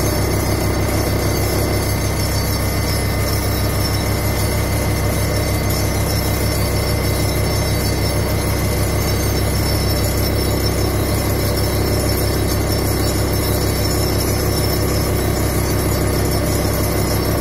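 Hydraulic vibratory pile driver running steadily as it vibrates a steel sheet pile, giving a loud, constant low drone with a fast, even pulsing.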